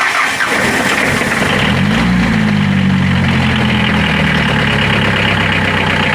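Mitsubishi 4D56 four-cylinder diesel being cranked on the starter. It catches about two seconds in and rises to a steady run toward idle, starting now that the burnt fuel shut-off solenoid is bypassed with direct power.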